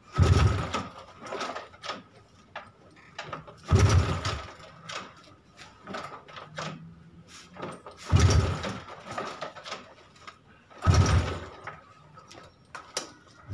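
Honda EX5 Dream's single-cylinder four-stroke engine kicked over four times, about three to four seconds apart, each kick a brief heavy turnover that does not fire. The spark plug is out and a compression gauge is in its place, so this is a cranking compression test at half throttle.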